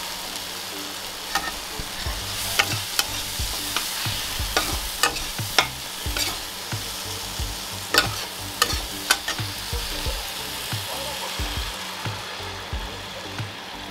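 Spice paste frying in mustard oil in a kadai, sizzling, while a spatula scrapes and knocks against the pan at irregular intervals. Near the end water is poured into the well-fried masala and the sizzling fades.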